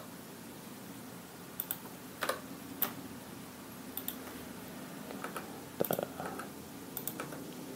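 Sparse, irregular clicks of a computer keyboard and mouse, about eight in all with pauses between, over a faint steady hum.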